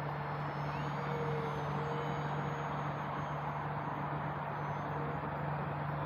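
An E-Flite RV-7 electric RC airplane's motor and propeller heard from the ground as it flies overhead: a steady low drone with a faint high whine that wavers in pitch.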